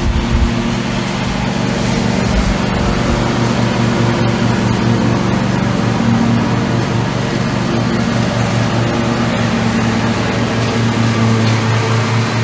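Lawnmower engine running steadily: a loud, even hum that wavers slightly in pitch and gets a little louder over the first two seconds.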